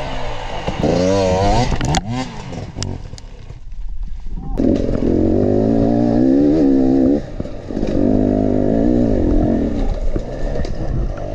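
Enduro dirt bike engine revving, its pitch rising and falling with the throttle as the bike works over rocky trail. It dips briefly about four seconds in, then runs hard again with the revs swelling and easing.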